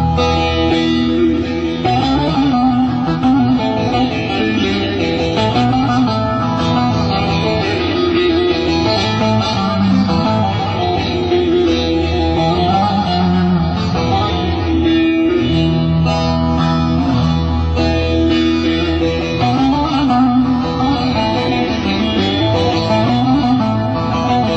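Instrumental passage of a Turkish folk-pop song: a plucked-string lead with bass and rhythm backing, steady and continuous, with no singing.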